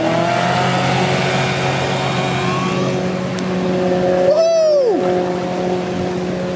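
Small outboard motor on an open canoe running at high revs through white-water rapids, its pitch wavering, with one quick sharp rise and drop about four and a half seconds in. Rushing water hisses underneath.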